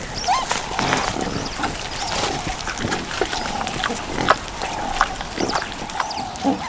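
Warthogs grunting and snorting at close range, with a few short high squeaks mixed in.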